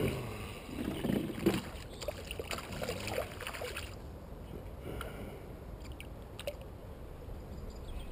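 Water splashing and sloshing as a hand draws a fishing line in at the surface of a lake. The sounds are busiest in the first four seconds, then quieter with a few small ticks.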